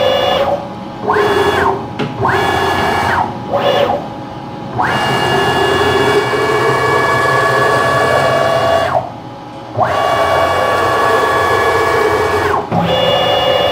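Three-phase stepper motors driving the ballscrews of a PM-727M mill converted to CNC, jogging the table back and forth. Each move is a steady pitched whine that rises in pitch as it speeds up and drops as it stops: a few short moves early on, then two long ones of about four and three seconds with a short pause between them.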